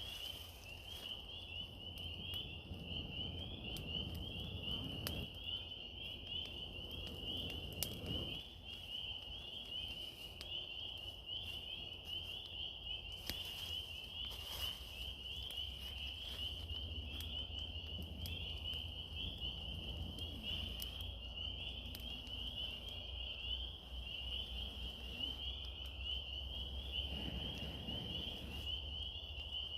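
A steady high-pitched trilling chorus that runs without a break, with a low rumble underneath and scattered faint ticks.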